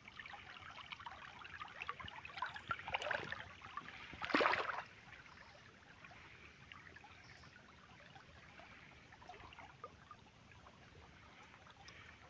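Irrigation water flowing steadily along a field channel and through a flooded wheat field, with a brief louder burst about four seconds in.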